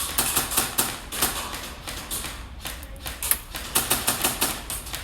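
Airsoft guns firing: rapid, irregular clacking shots, several a second.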